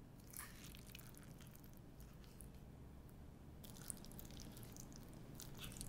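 Faint clicks and scrapes of a wooden spoon stirring eel and rice in a ceramic bowl, a few scattered touches over a low room hum.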